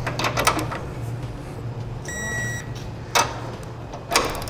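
Socket wrench tightening the base-plate mounting bolts to torque: a few quick clicks near the start, then two sharp clicks about a second apart near the end. A short electronic beep sounds about two seconds in, over a low steady hum.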